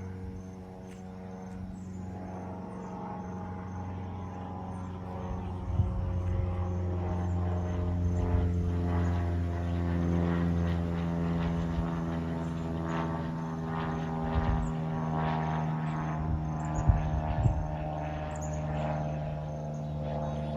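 Cessna 172S Skyhawk SP's four-cylinder Lycoming engine and propeller droning at full power as the plane circles. It grows louder about five seconds in and stays strong, its pitch shifting slightly as it moves past.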